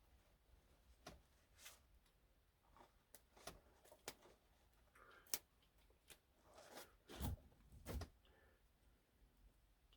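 Faint rustling, clicks and knocks of small items being handled, with two louder thumps, about a second apart, in the last third.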